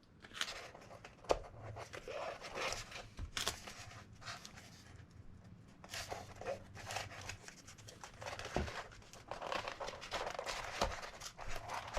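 Cardboard armour pieces and tape being handled: irregular rustling and crinkling with a few light knocks of cardboard against the table.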